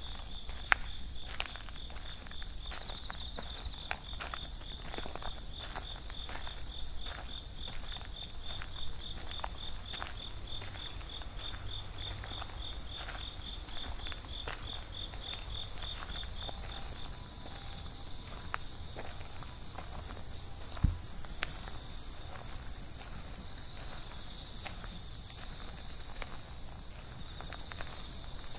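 Dense night chorus of autumn crickets, steady high-pitched ringing trills that the uploader identifies as bell crickets. A nearer insect's fast pulsing trill stops a little over halfway through. Irregular footsteps tap along during the first half or so, and a single low thump comes about three-quarters of the way in.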